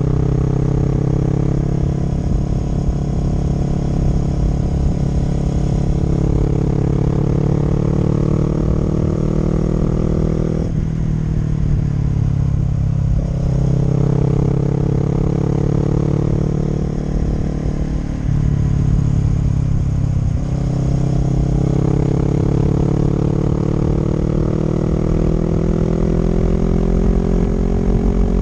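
Honda CB500X parallel-twin engine and exhaust under way, the note climbing steadily as the bike gathers speed. The note drops back suddenly about ten seconds in, and again around eighteen to twenty seconds in, before rising again.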